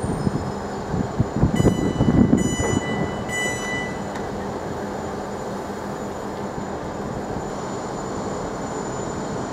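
South Western Railway electric train moving through the station, with irregular low knocks from its wheels over the track for the first few seconds, then a steady rumble. Three short, high-pitched electronic beeps sound about two to three seconds in.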